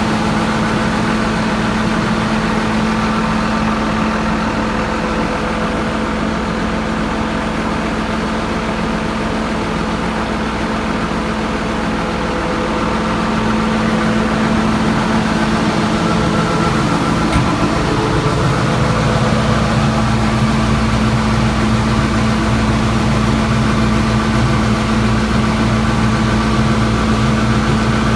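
Farm machinery diesel engine running steadily, with a deeper low tone joining in about two-thirds of the way through.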